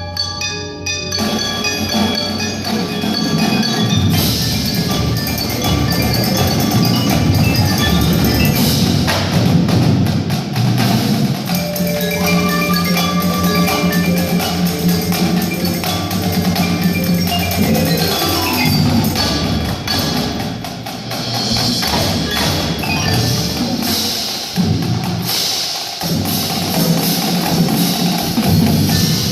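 Percussion ensemble playing: marimbas, xylophones and bells over drums, with steady, loud, continuous music.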